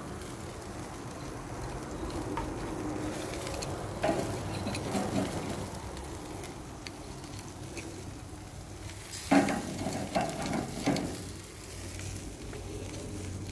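Meat sizzling on a barbecue grill grate, with metal tongs clacking against the grate as pieces are picked up and moved. The knocks come a few times about four seconds in and loudest from about nine to eleven seconds in.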